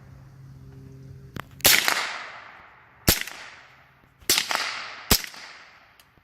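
Smith & Wesson M&P 15-22 .22 LR semi-automatic rifle fired in slow single shots, about one a second or a little more apart. The first shot comes nearly two seconds in and a fifth right at the end. Each sharp crack is followed by a long echo dying away.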